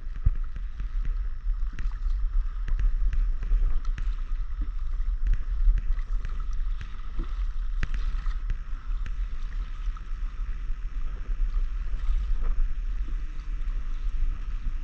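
Water splashing and lapping against a stand-up paddleboard, with irregular short splashes, over a steady low rumble of wind on the microphone.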